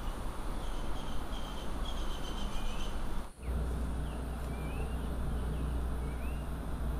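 Outdoor rural ambience: a steady background hiss with faint repeated high chirps of birds or insects. After a cut about a third of the way in, short rising chirps of birds continue over a steady low rumble.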